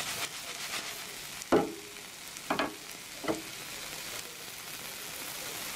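Oladyi (thick pancakes) sizzling steadily in a frying pan, with three sharp knocks in the middle, the first the loudest.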